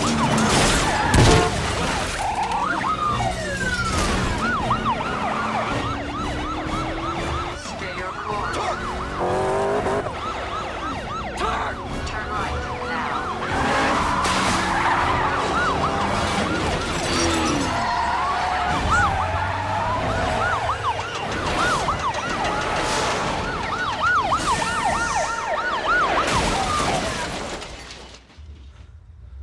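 Police car sirens yelping and wailing over car engines in a chase, with a sharp crash of flying debris about a second in and scattered knocks after it. The sound drops off abruptly near the end.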